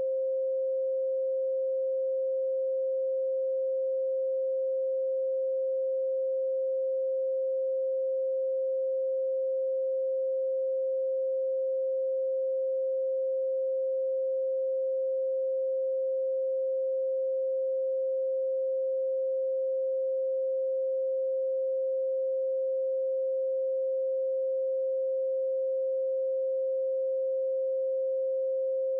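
A pure 528 Hz sine tone, held perfectly steady with no other sound.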